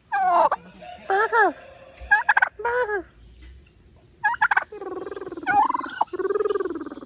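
A domestic turkey hen calls loudly in a string of about seven calls with short pauses between them. The later calls are longer. She is a hormonal hen with a lot to say.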